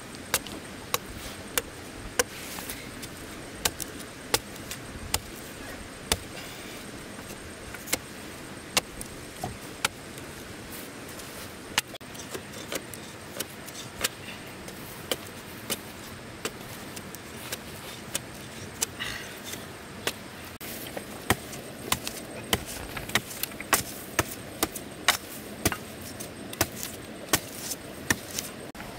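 A knife blade chopping and shaving the end of a green wooden stick into a point: sharp, irregular chops about once a second, coming quicker in the later part, over a steady background hiss.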